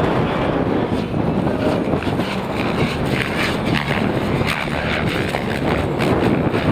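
Electric RC helicopters flying, their rotors whirring under heavy wind noise on the microphone.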